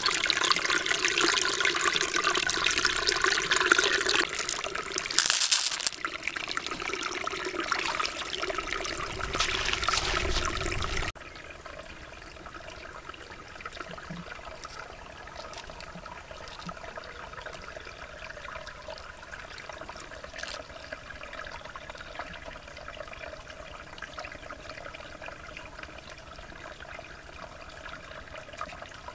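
Shallow stream water trickling over pebbles and shells, heard close and loud at first. About eleven seconds in it cuts abruptly to a fainter, steady trickle, with a few small splashes of a hand in the pool.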